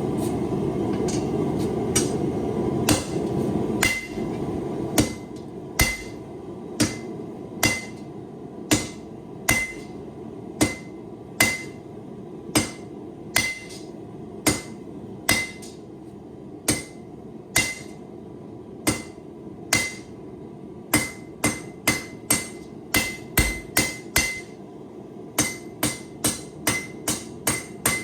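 Hand hammer striking a hot high-carbon steel knife blade on an anvil while forging it out, each blow with a short metallic ring. The blows come about once a second, then in quicker runs of two or three a second near the end, over a steady rushing noise that drops away about four seconds in.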